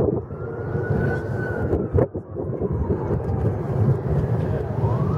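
Distant fire truck siren in a slow wail, rising and falling once and starting a second rise near the end, faint over a steady low rumble. A single knock about two seconds in.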